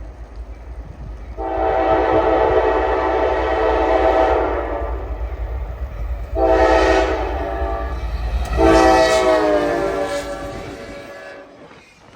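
Diesel locomotive air horn with several chimes sounding a long blast, a short one and a final long one, the close of the long-long-short-long grade-crossing signal, over the low rumble of the passing train. The pitch of the last blast drops as the locomotive goes by.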